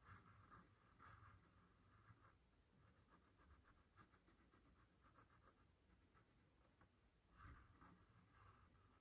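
Faint scratching of a pen nib on paper in short strokes, drawing small lines in a sketchbook.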